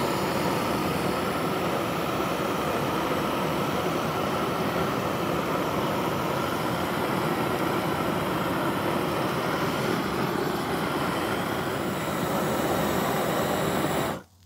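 Grill Blazer Grill Gun propane torch blasting flame onto a steak on a grill grate to sear it, a loud steady rushing noise. It cuts off suddenly near the end.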